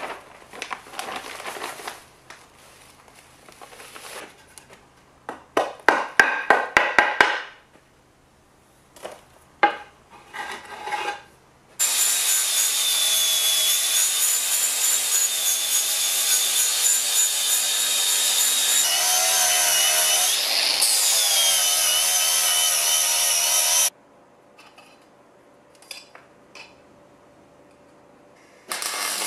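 Angle grinder grinding the paint off the top edge of a steel cylinder: a steady, loud, high whine for about twelve seconds in the middle, dipping in pitch as it bites harder about seven seconds after it starts. Before it, quick rhythmic scraping and knocking as sand is rammed down inside the cylinder.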